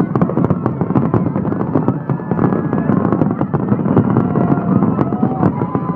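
Fireworks finale: a dense, unbroken barrage of rapid crackling bangs over a low rumble, as many shells burst at once.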